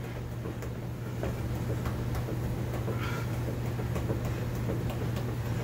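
A soccer ball being tapped back and forth between the feet on a rug, heard as soft irregular taps and shuffles over a steady low hum.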